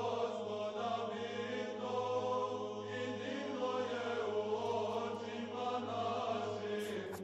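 Soft Orthodox choral chant in the background: voices holding long notes over a steady low drone.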